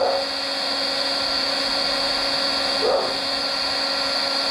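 Electric heat gun running steadily, a whirring hiss with a steady hum, heating a solder-sleeve joint on a broken power-window wire until the solder melts. Two brief sounds stand out, at the start and about three seconds in.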